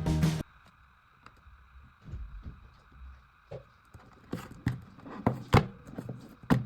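A phone ringtone cuts off about half a second in. After it comes a faint steady hum with scattered sharp taps and knocks, which grow more frequent and louder in the second half.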